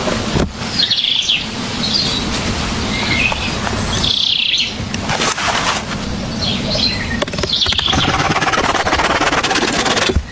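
Birds chirping, several short calls in a row, over a loud steady rushing noise and a few sharp clicks.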